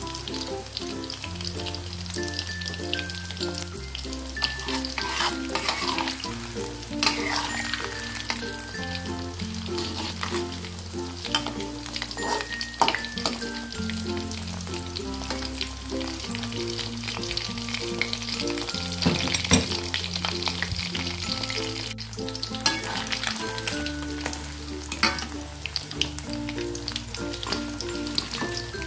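Battered shrimp deep-frying in hot oil in a wok, with a continuous crackling sizzle and scattered pops. A spatula stirs the shrimp and scrapes the wok now and then.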